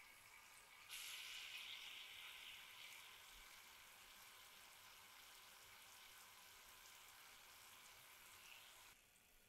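Cannoli shells frying in hot oil in a frying pan: a faint, steady sizzle that swells about a second in, settles back, and cuts off near the end.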